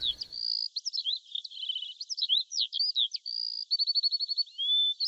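Songbirds chirping: a busy mix of quick high chirps, short rapid trills and clear held whistles, with no low sounds under them.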